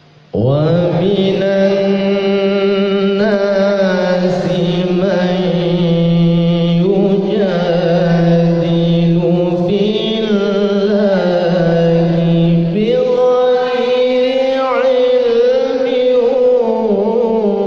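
A male qari's solo voice reciting the Quran in the Nahawand Kurdi maqam: long, melismatic held notes with wavering ornaments. It starts about half a second in, and a new, higher phrase begins about thirteen seconds in.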